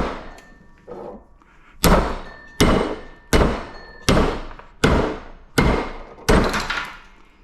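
A rapid series of heavy blows on the metal parts of a scrapped air filter as it is forced apart: about nine hard strikes, roughly one every three-quarters of a second, some leaving a short metallic ring.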